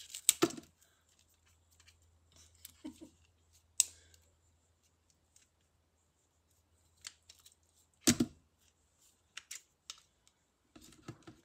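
Kitchen scissors snipping the antennae and whiskers off prawns: a few separate sharp snips, spaced a few seconds apart, the strongest about eight seconds in.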